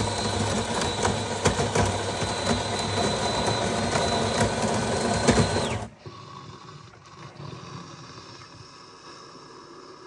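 Electric coffee machine's motor running with a steady hum, a high whine and a crackle, for about six seconds, then cutting off suddenly; a much quieter sound follows.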